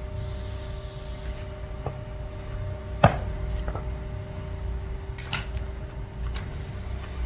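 A steady low machine hum, with a handful of sharp knocks scattered over it; the loudest knock comes about three seconds in.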